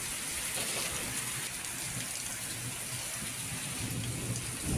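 Heavy rain pouring down steadily: a dense, even hiss.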